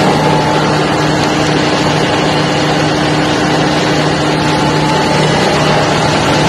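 Large engine running steadily in an engine room: a loud, dense machinery din with a steady low hum over it.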